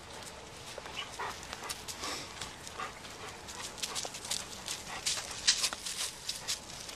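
Irregular crunching footsteps of a person and a leashed dog on dry leaf litter and dirt, with scuffs and rustles that get busier near the end.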